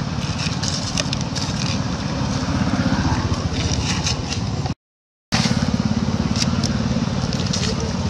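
Close contact noise of dry leaves crackling and macaque fur scraping against the microphone, many sharp clicks over a steady low rumble. The sound cuts out for about half a second midway.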